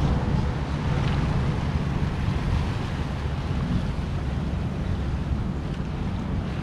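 Wind buffeting the microphone and waves washing along the hull of a sailboat under way, over a steady low hum from its diesel engine while motorsailing.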